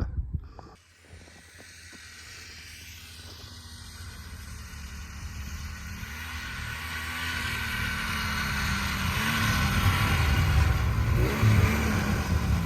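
A motor vehicle's engine running steadily and growing gradually louder, as if coming closer.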